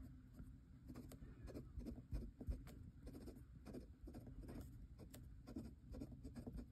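Faint scratching of a Kakimori brass dip nib across notebook paper, short strokes as words are written in small handwriting, with a couple of soft knocks about two seconds in.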